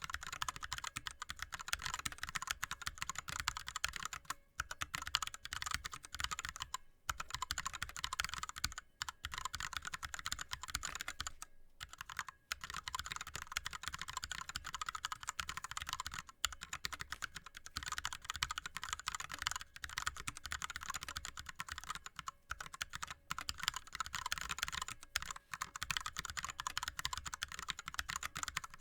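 Fast continuous touch typing on an ErgoDox keyboard with Cherry MX Red linear switches and DSA keycaps: a dense stream of key clacks, broken only by brief pauses of a fraction of a second.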